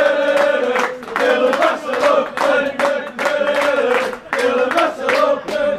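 Group of football supporters chanting together in a sung, held tune, with sharp rhythmic beats about twice a second.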